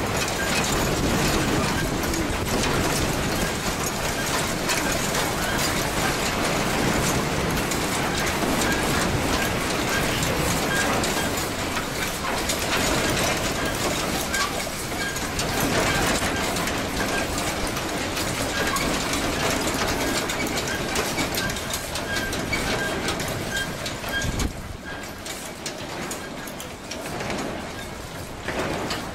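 Continuous clattering and rattling of a railway station's metal structures and overhead-wire gantries shaking in a strong earthquake. A faint, high, repeating beep runs underneath, and the rattling eases a little near the end.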